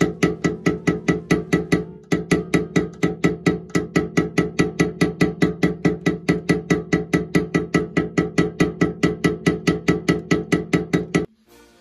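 Background music with a fast, even percussive beat of clicky wood-block-like hits over sustained tones, stopping abruptly near the end.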